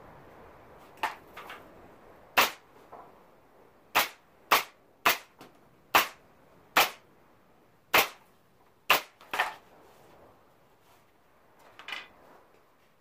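Pneumatic brad nailer firing, about nine sharp shots at uneven intervals, as brads are driven into the joints of a wooden window frame, with a few lighter knocks of the wood between them.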